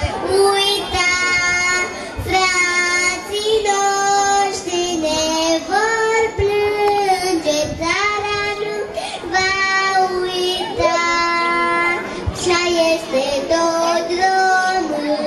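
A young girl singing a solo song into a handheld microphone, in clear held notes that step from one pitch to the next about every half second to a second.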